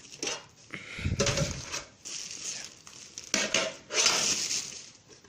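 A set of drinking glasses in its box being handled and moved about: irregular knocks and scraping, with a low knock about a second in.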